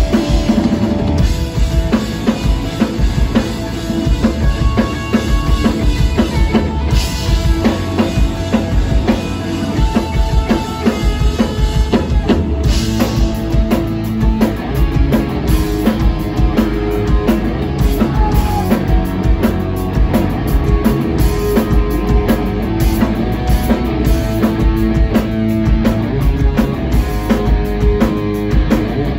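Rock band playing live: drum kit and electric guitars, loud and steady, with cymbal crashes about seven and twelve seconds in.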